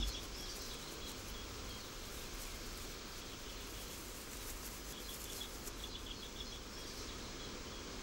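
Faint, steady outdoor background hiss, with a few faint high chirps about five to six and a half seconds in.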